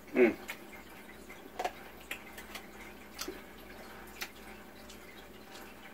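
Wet eating sounds from sauce-covered crab legs: one louder squelch just after the start, then a few faint, scattered clicks and smacks.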